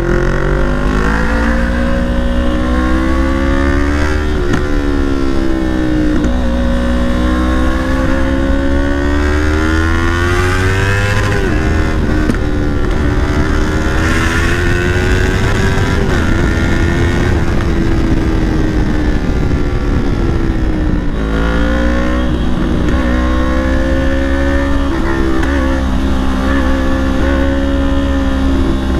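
Yamaha R3's parallel-twin engine through a Leo Vince full-system aftermarket exhaust, ridden on the road: the note climbs and wavers with the throttle and drops sharply several times as the revs fall, then climbs again.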